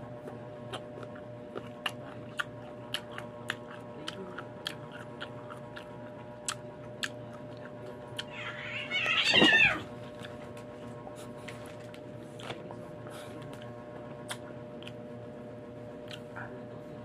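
Sharp mouth clicks and lip smacks, about two a second, from eating sour unripe green mango. About eight seconds in comes one loud, high, wavering cry lasting about a second and a half.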